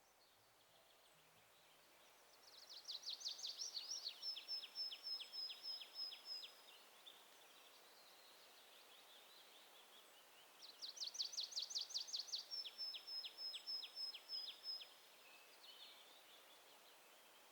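A wild songbird singing two phrases several seconds apart. Each phrase is a fast run of repeated notes that ends in a thin, high trill.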